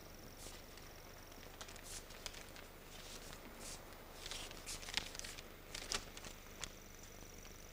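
Faint paper rustling and tearing as an envelope is opened and a letter taken out, in short scattered crackles.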